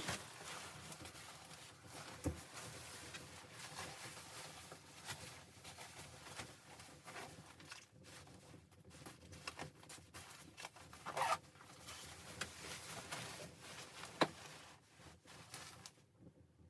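Continuous rustling and handling noise with scattered small clicks and a few sharper knocks.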